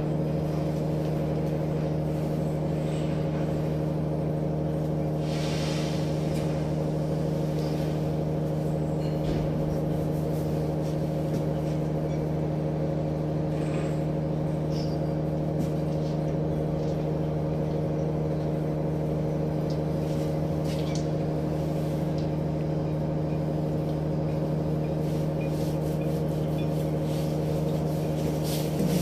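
Steady low hum of a cargo ship's running machinery, one pitch with its overtones and no change in level, with a few faint scrapes.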